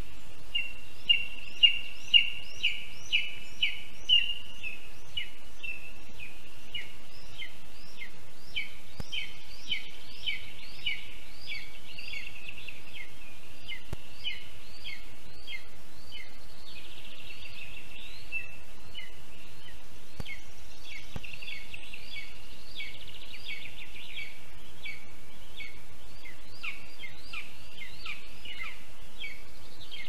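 Lesser spotted eagle chick giving food-begging calls: a long, steady run of short, high calls that rise and fall, about two a second, loudest in the first few seconds, over a steady background hiss.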